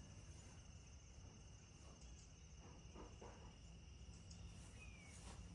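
Near silence with faint, steady, high-pitched cricket chirping and a few faint soft taps about three seconds in.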